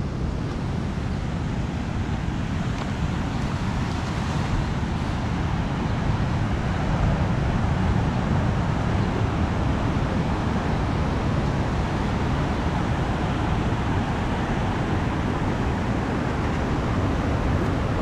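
Steady rush of heavy surf breaking on a reef, with wind rumbling on the microphone.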